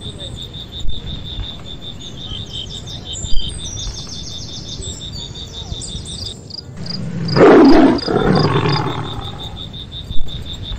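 A Bengal tiger growls loudly once, about seven seconds in: a rough call of under a second with a weaker trailing growl after it. Under it runs a steady pulsing chirp of insects.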